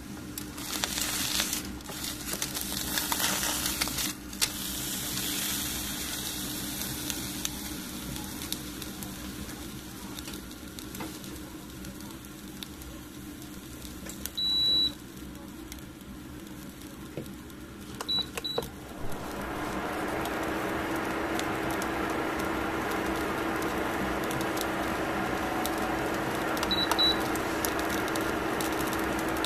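Aluminium foil crinkling and tongs scraping as a grilled salmon fillet is turned over. Then a kitchen appliance's electronic beeps: one longer beep about halfway through, and quick double beeps a few seconds later and again near the end. A steady rushing noise sets in about two-thirds of the way through.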